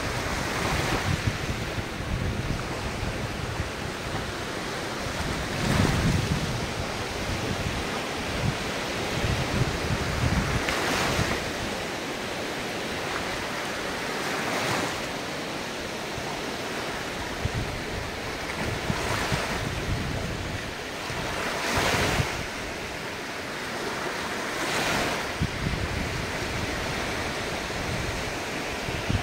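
Ocean waves breaking and washing ashore, a surge of surf every three to five seconds over a steady hiss of water. Low wind rumble on the microphone, heaviest in the first third.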